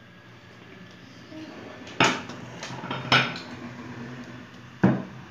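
Three sharp clattering knocks, about two, three and five seconds in, with a few lighter clinks between, over a low steady hum.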